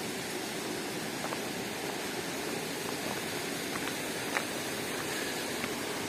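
Steady rush of a rocky mountain stream flowing over stones, with a few faint clicks and one sharp tap about four seconds in.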